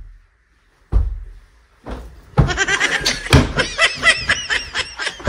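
Heavy thuds of sofa cushions being swung and dropped during horseplay, one about a second in, then from about two and a half seconds a burst of loud, high-pitched laughter over further thuds.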